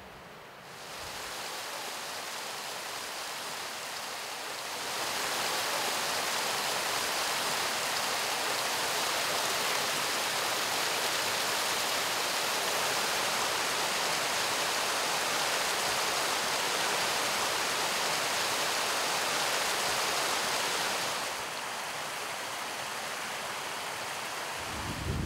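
A small mountain stream cascading over rocks: a steady rushing of water. It grows louder about five seconds in and eases back a little near the end.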